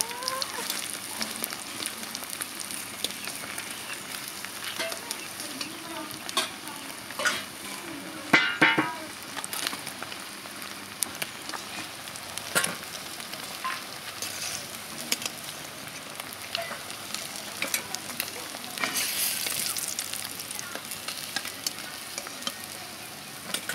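Food sizzling in hot oil in a cooking pan, stirred with repeated scraping and knocking strokes against the pan. There is a louder clatter about eight seconds in and a swell of sizzle near the end.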